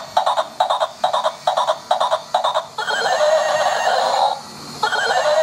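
Battery-powered toy Pegasus horse playing recorded sounds through its built-in speaker. First comes a run of hoofbeat clip-clops, about two a second. About three seconds in a whinny follows, and a second whinny starts near the end.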